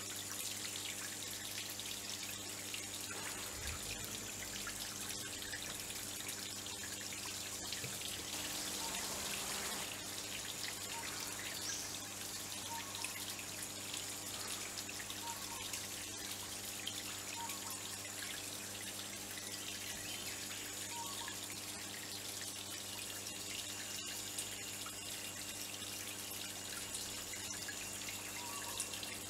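Small pond waterfall trickling and dripping over rocks: a steady patter of falling water.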